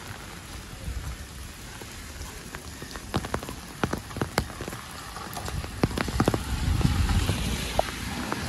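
Rain falling on an open umbrella overhead: a steady patter with many sharp drops tapping on the fabric. It grows louder and busier in the second half.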